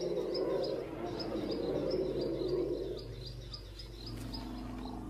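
Outdoor wildlife ambience: short high chirps repeat a few times a second, over a low steady rumbling sound that fades about three seconds in.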